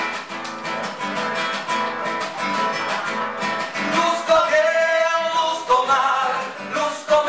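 Music: a strummed acoustic guitar playing a quick, steady rhythm.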